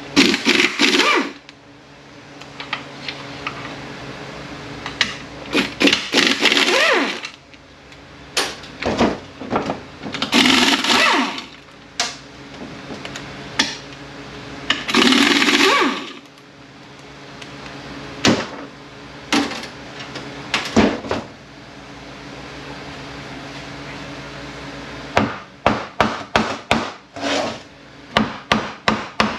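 Power tool spinning out the 231J transfer case's case-half bolts in four short bursts, with a quick run of sharp hammer taps near the end.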